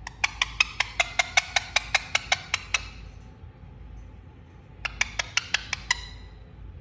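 Parrot making rapid, evenly spaced clicking sounds, about five a second: one run of about fourteen clicks, then after a pause of two seconds a shorter run of about seven.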